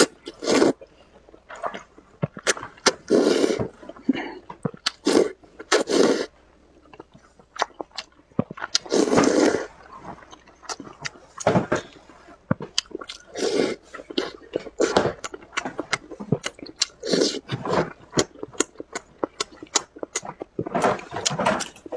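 Close-miked eating of spicy glass noodles: many short wet chewing and lip-smacking clicks, with several longer slurps of noodles and broth a few times through.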